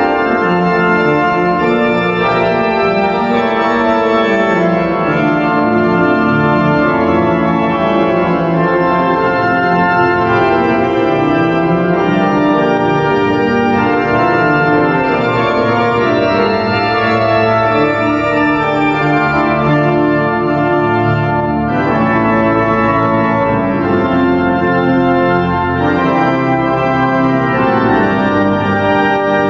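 Pipe organ playing sustained chords in a large stone cathedral. A deeper bass comes in about two-thirds of the way through.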